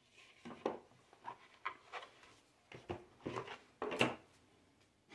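Cardboard card-deck box being opened and a deck of oracle cards slid out and shuffled by hand: a string of short, irregular rustles, scrapes and light knocks.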